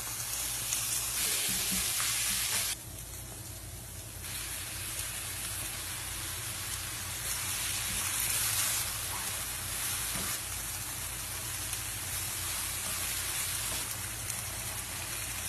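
Food sizzling as it fries in oil in a pan: a steady frying hiss that drops abruptly about three seconds in and comes back a second and a half later.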